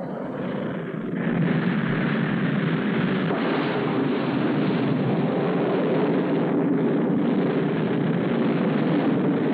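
Rocket engine at lift-off: a steady rushing exhaust noise that grows louder about a second in and then holds.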